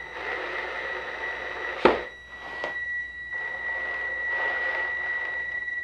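Cordless drill driving a wood screw slowly through the toboggan's plastic base into a wooden crossbar: a steady high motor whine over gear hiss, with one sharp click about two seconds in.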